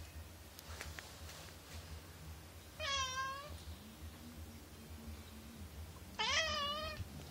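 Calico cat meowing twice, two short meows about three seconds apart.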